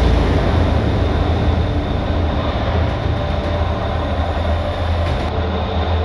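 Overland 4x4 driving fast on a paved road: a steady low rumble of engine and tyre noise that holds even throughout.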